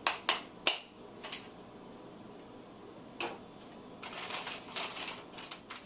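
A stapler clicking as it is pressed through a folded paper lunch bag: several sharp clicks in the first second and a half and another about three seconds in. Paper crinkling follows as the bag is handled.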